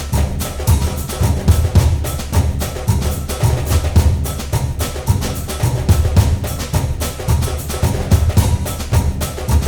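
Instrumental background music with a busy, steady percussion beat over a deep bass.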